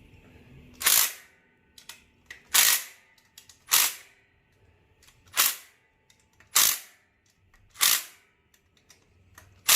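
Seven short bursts from a power tool, about a second or so apart, driving down the bolts on a Pontiac G8 GT's water pump.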